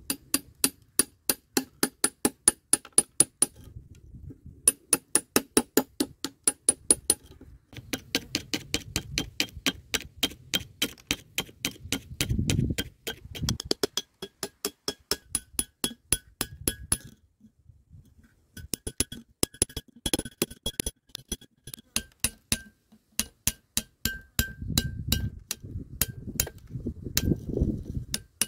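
A hammer striking a steel chisel in quick runs of about four ringing metallic blows a second, with short pauses between runs, chipping thick rust scale off an old iron pickaxe head.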